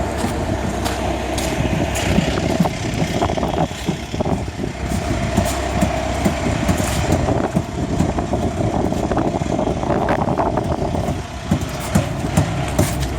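Concrete mixer truck running with a steady low rumble and a held whine, with scattered short knocks and rattles over it, more frequent near the end.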